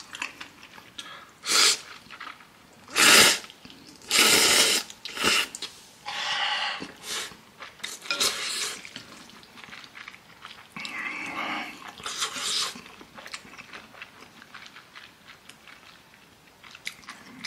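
A person slurping instant ramen noodles in a series of loud, noisy bursts through the first two thirds, then chewing quietly near the end.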